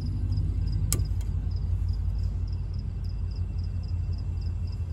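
Crickets chirping steadily at about three chirps a second over a loud, steady low rumble, with one sharp click about a second in.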